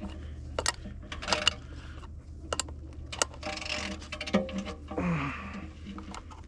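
Hand tools working on machine parts: scattered metallic clicks and knocks, with two short rustling hisses in the middle, over a steady low hum.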